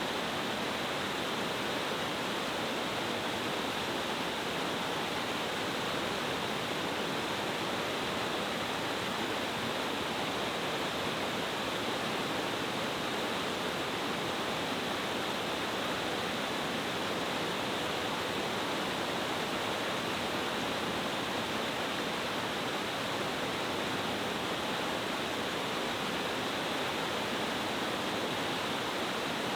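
A mountain-stream waterfall cascading powerfully over several tiers of rock: a steady, unbroken rush of falling water.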